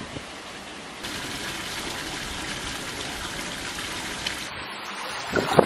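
Steady hiss of running or falling water, growing a little louder about a second in, then a couple of sudden splashes near the end.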